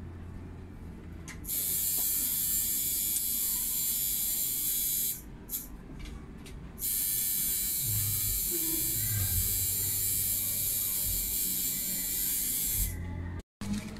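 Electric tattoo machine buzzing steadily, starting about a second and a half in, stopping for a second or so around the middle, then running again until just before the end.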